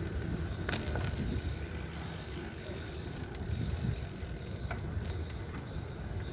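Steady low rumble of a ride along a wet paved road, road and wind noise from the moving vehicle, with a few faint clicks.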